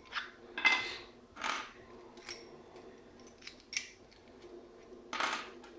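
Short metallic clicks and scrapes from a small disc detainer padlock and a lock pick being handled and worked, coming irregularly, the loudest about a second in and another near the end.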